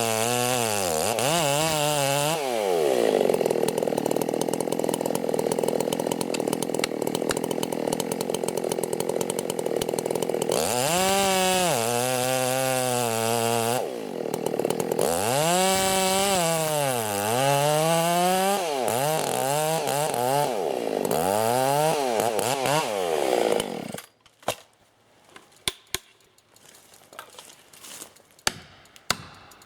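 Two-stroke chainsaw cutting timber, the engine revving up and down between stretches of steady full-throttle cutting. It stops abruptly about six seconds before the end and a few scattered sharp knocks follow.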